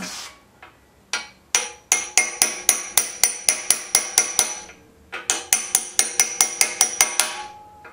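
A hammer striking a socket used as a driver, pressing a steering bearing race into the steel head tube of a mini bike frame. Two single ringing metal blows come about a second in, then two fast runs of strikes, about five a second, with a short pause between them.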